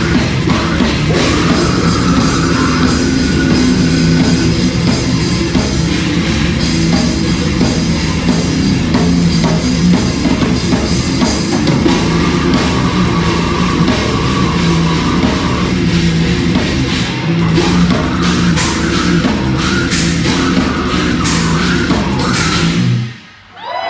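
A live heavy-metal band plays loudly, with guitar and a pounding drum kit. The music cuts off abruptly near the end.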